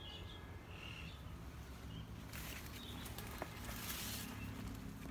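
Faint outdoor garden ambience under a low steady hum, with a few soft bird chirps in the first second. A brief high hiss rises and fades in the middle, with a single small click.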